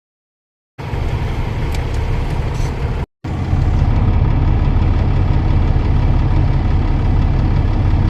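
Engine running steadily with a deep low rumble, heard in two short stretches that start and stop abruptly, the second louder than the first.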